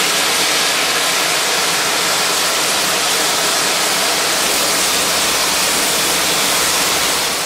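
Water gushing from a railway water crane into a steam locomotive's tender tank: a loud, steady rushing hiss.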